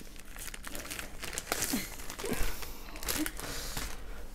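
Packaging crinkling and rustling as it is handled while a parcel is unwrapped, in uneven spells with small crackles.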